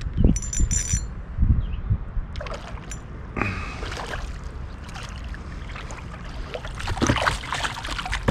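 Water splashing and gurgling around a kayak on a river, with a few dull knocks in the first two seconds and two louder splashes about three and a half and seven seconds in.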